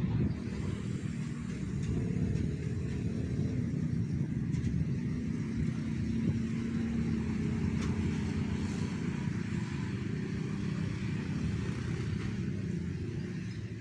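Heavy road traffic passing close by: the low, steady drone of large truck engines moving slowly, with one engine's note standing out in the middle.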